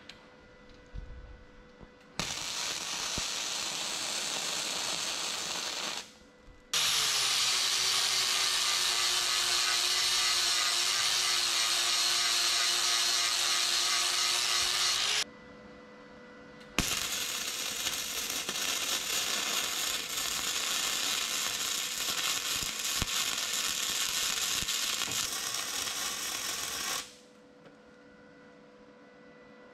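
Electric arc welder crackling and hissing through three long welds, about four, eight and ten seconds long, with short breaks between them.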